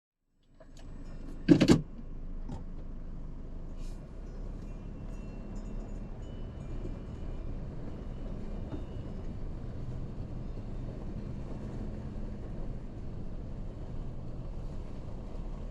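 A vehicle running, heard from inside the cabin as a steady low rumble of engine and road noise. There is one loud knock about a second and a half in.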